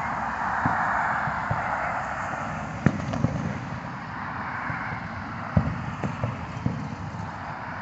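Distant aerial firework shells going off: several booms, the sharpest about three seconds in and a scatter more in the second half, over a steady hiss.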